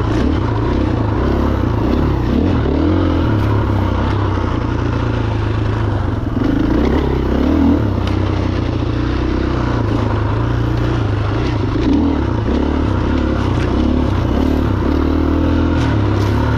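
Husqvarna FE501 single-cylinder four-stroke enduro motorcycle engine running while ridden, its pitch rising and falling with the throttle.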